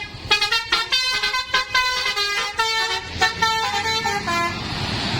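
Bus telolet horn, a multi-tone musical air horn, playing a quick melody of short notes that step between pitches. Near the end the horn stops and steady engine noise takes over.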